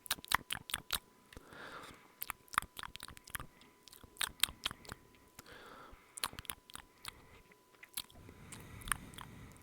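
Mouth sounds: many irregular sharp clicks, with a few softer hushing sounds between them.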